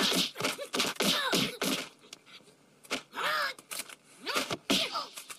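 Martial-arts film fight soundtrack: short yells and grunts from the fighters, with sharp whacks of punches and blows between them. It goes quieter for a moment a little past the middle.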